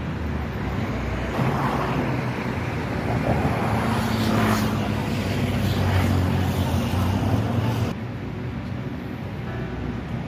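Road traffic: car engines and tyre noise, swelling in the middle as vehicles pass, then dropping off suddenly near the end.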